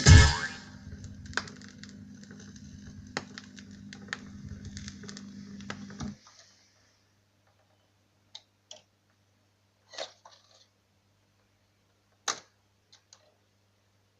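Dual 1218 turntable's changer mechanism running with a steady hum and scattered clicks for about six seconds, then cutting off suddenly. A few separate mechanical clicks follow over a faint low hum.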